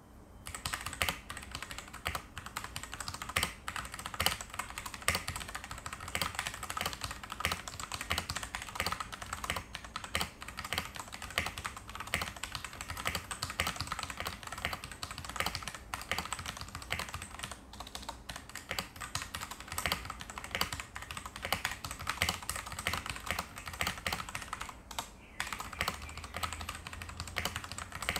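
Fast continuous typing on a mechanical keyboard with stock RK/Huano brown tactile switches, a dense irregular run of keystroke clicks and clacks, with a couple of short pauses.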